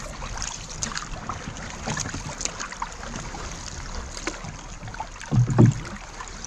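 Water lapping and splashing against the hull of a small outrigger boat as it moves through calm water, with a brief low thud about five and a half seconds in.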